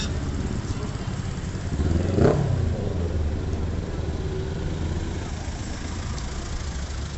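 Street traffic with a steady low engine rumble from vehicles moving slowly. A vehicle passes close about two seconds in, the loudest moment, its engine pitch sweeping as it goes by.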